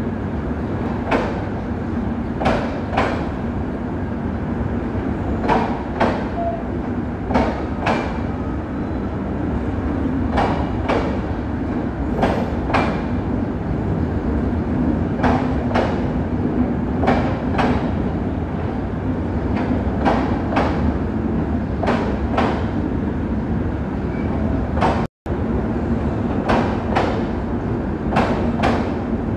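Passenger train of LHB coaches rolling past a platform: a steady rumble of wheels on rail, with sharp clacks in pairs every couple of seconds as each bogie crosses a rail joint. The sound drops out for an instant near the end.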